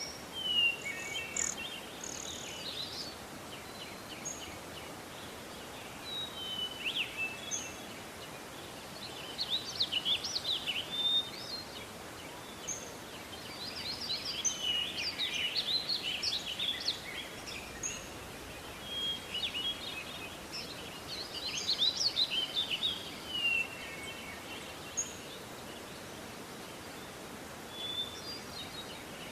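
Morning nature ambience: several birds chirping and trilling in scattered bursts, over a steady background hiss.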